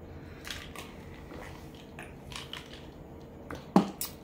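A person drinking water from a mug: faint swallowing and mouth clicks, then a short vocal 'ah' with a quickly falling pitch and a light click near the end.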